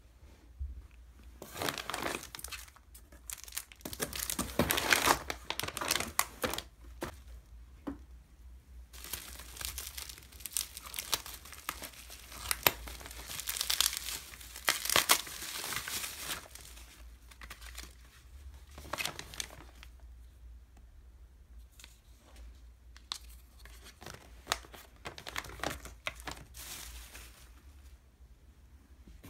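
Plastic bubble-wrap packaging crinkling and tearing as a parcel is unpacked by hand, in irregular bursts that are busiest in the first half and sparser toward the end.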